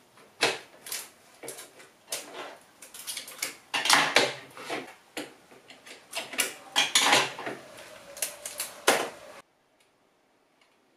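Strips of double-sided adhesive tape being peeled and pressed onto a ring light, with rustles and clicks of handling in irregular bursts. The sound cuts off suddenly about nine seconds in.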